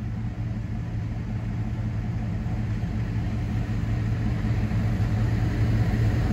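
Boom truck's engine running steadily while the boom is lowered, slowly growing louder.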